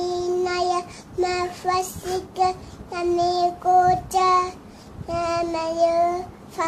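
A toddler's high voice chanting Quran recitation, in melodic phrases with long held notes and short breaks between them.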